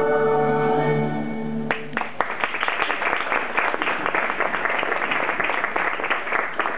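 Recorded music ends on a long held chord a little under two seconds in, then an audience claps and applauds.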